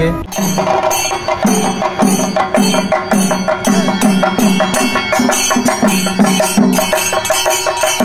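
Traditional drum ensemble: several drums played with sticks in a fast, driving rhythm, with sharp strokes several times a second over a deeper beat about three times a second. It starts abruptly just after the opening.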